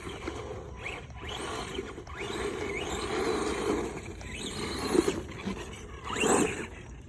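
RC car driving, its motor whining up in pitch again and again with short bursts of throttle while the tyres rasp over the ground. There is a sharp knock about five seconds in, and the loudest burst comes near the end.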